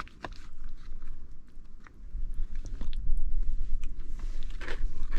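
A person chewing a mouthful of MRE macaroni mixed with cheese and corn nuggets, with scattered crunchy clicks, over a steady low rumble.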